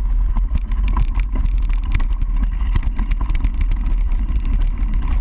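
Mountain bike ridden fast over rough ground, filmed on a GoPro: heavy wind buffeting on the camera's microphone, with frequent rattles and knocks from the bike.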